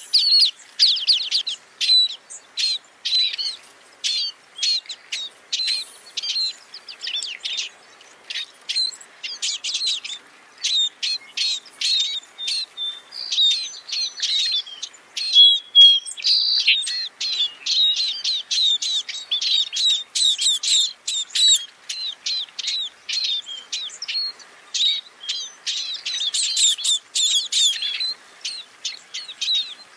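Scaly-breasted munia calls: a quick, continuous run of short, high chirps and whistled notes, with a burst of higher, brighter notes about twenty seconds in and again near the end.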